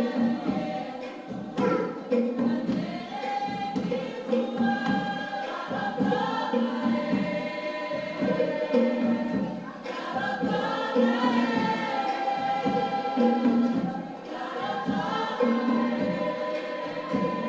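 A choir singing in harmony, several voices together, with some long held notes.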